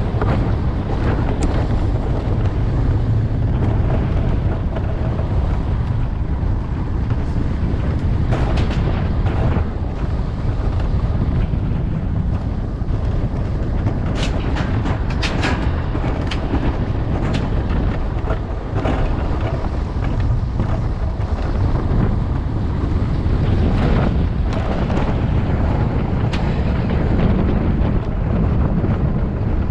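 Wind buffeting an on-board camera's microphone over the steady rumble of an alpine coaster sled running along its rail track, with scattered sharp clicks and rattles from the sled and track.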